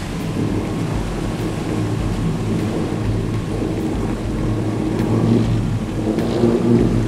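Engine running steadily, surging a little about five and six and a half seconds in.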